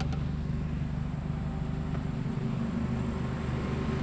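Motor vehicle engine running at a steady speed, a low even hum with no change in pitch.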